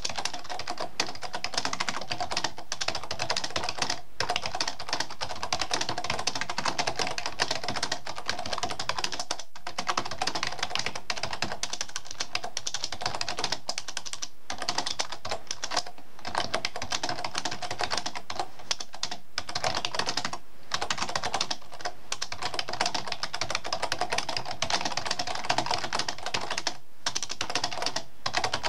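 Rapid typing on a computer keyboard: a dense, continuous clatter of keystrokes, broken by several brief pauses.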